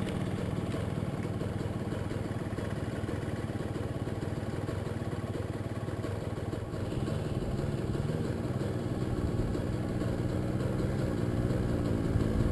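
Suzuki JR50 mini dirt bike's small two-stroke engine running as it is ridden up a dirt trail. The engine note holds fairly steady, then rises and falls repeatedly near the end as the throttle is worked.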